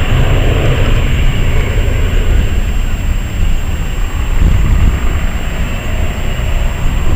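Wind buffeting the camera microphone ahead of a passing thunderstorm: a loud, steady low rumble that flutters in strength, with a hiss above it.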